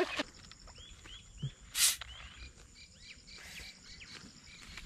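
Repeated short bird chirps with a faint steady insect drone, and one brief loud hiss-like rush about two seconds in.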